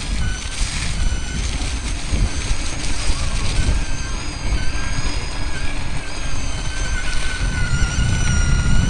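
Electric off-road vehicle's drive motor whining under way, its pitch drifting up and down with the throttle, strongest and falling slightly near the end, over a heavy low rumble of the ride on a dirt trail.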